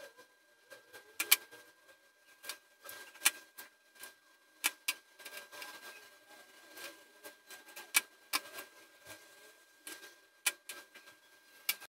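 Needle-nose pliers clicking and tapping against small metal jump rings and a chain as the rings are opened and closed, with occasional knocks of tools on a cutting mat; irregular sharp clicks a second or so apart.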